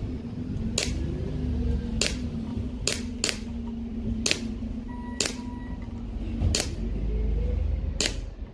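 Gen 4 Glock 17 CO2 blowback BB pistol firing steel BBs, eight sharp shots at an uneven pace over wind on the microphone.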